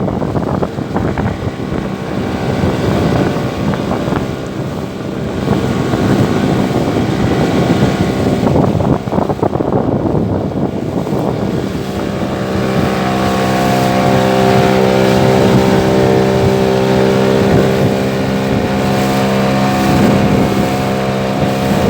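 Small fishing boat's engine running steadily under way through rough, choppy sea, with wind buffeting the microphone; the engine's tone comes through more clearly from about halfway.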